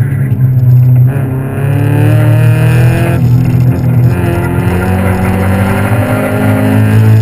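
Autocross car's engine pulling hard under acceleration from inside the open cockpit. Its pitch climbs, drops briefly about three seconds in, then climbs again, over a steady low drone.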